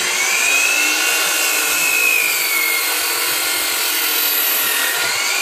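Hitachi C12FDH 12-inch compound miter saw with a fine-tooth finishing blade, cutting through a wooden board. Its loud whine sags in pitch about two seconds in as the blade works through the wood, then climbs again near the end as it cuts free.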